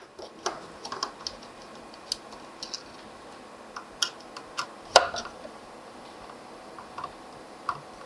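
Scattered small clicks and ticks of a screwdriver turning out the screws that fix the power supply inside a beam moving-head light, the sharpest click about five seconds in.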